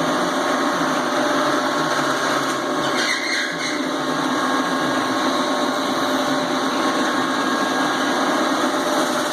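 CNC metal-spinning lathe running, its mandrel turning: a steady machine whir with faint steady tones and a brief brighter rasp about three seconds in.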